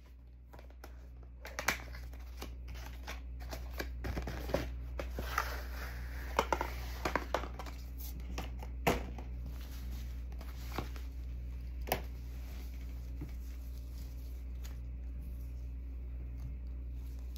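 Handling noises: rustling with a few sharp clicks and taps as a rigid cardboard gift box is opened and a folded bodysuit is lifted out and unfolded. The handling is busiest in the middle and stops after about twelve seconds, leaving a low steady hum.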